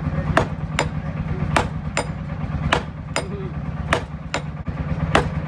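Hand hammer blows on red-hot steel rebar laid on an anvil, about two and a half strikes a second, each with a short metallic ring, as the hot end is flattened into a sickle blade. A steady low hum runs underneath.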